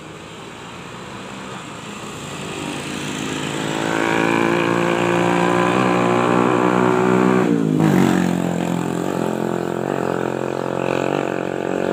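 A motor engine passing by. It grows louder over the first few seconds, then drops in pitch about eight seconds in as it goes past.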